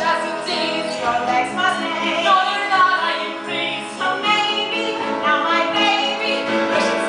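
Musical-theatre song sung by several voices with accompaniment, ending on a held note near the end.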